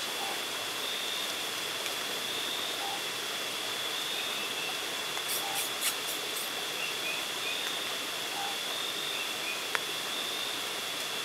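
Night forest ambience: a steady hiss with a continuous high-pitched trill. Faint short low notes come every few seconds, and there are a few soft clicks about halfway through.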